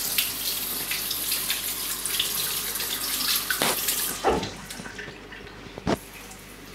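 Kitchen tap running into the sink as sticky dough is rinsed off hands, shutting off about four seconds in; a few knocks follow.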